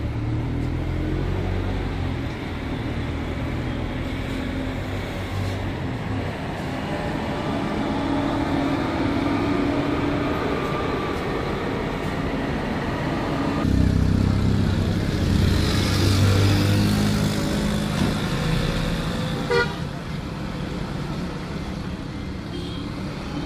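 A bus's engine running, with its horn tooting amid street traffic. The sound changes abruptly about two-thirds of the way through.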